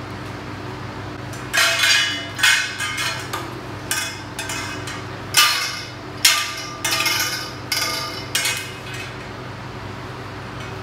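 White metal tubes of a laundry organizer frame clanking and clinking against each other as the frame is handled and stood upright: a string of sharp, ringing metallic knocks starting about a second and a half in and ending near the end.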